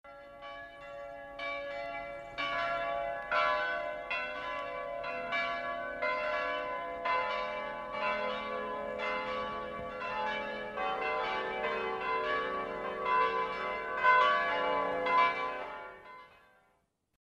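Compact, homogeneous stones struck one after another, about once a second. Each strike rings with a clear, crystalline, bell-like tone, and the pitch changes from strike to strike like a melody. The ringing fades out shortly before the end.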